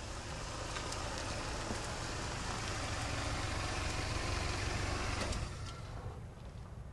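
A car driving up and pulling to a stop: steady engine and road noise that swells slightly, then fades away over the last second and a half.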